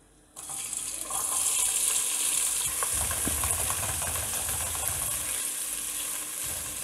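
Chopped onions sizzling in hot oil in a metal pot as they are sautéed and stirred with a silicone spatula. The sizzle starts suddenly as the onions hit the oil, just after the start, builds over a second and then eases slowly.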